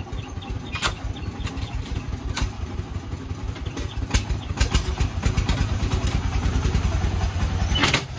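A small dump truck's diesel engine idles with a fast, even beat that grows louder about halfway through. A few sharp metal knocks come from the tailgate latch being worked by hand. Near the end there is a louder clatter as the tailgate swings open and the load of soil and rubble starts to spill.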